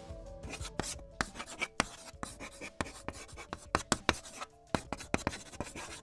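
Chalk writing on a blackboard: a run of quick, irregular taps and scratches, over faint background music.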